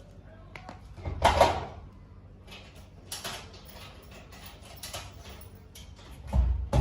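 Household handling noises: a few separate knocks and rustles of things being moved, opened or set down, the loudest about a second in and another near the end.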